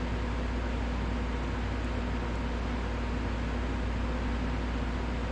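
Steady mechanical hum with a strong low drone and an even hiss above it, unchanging throughout; no distinct tool strokes stand out.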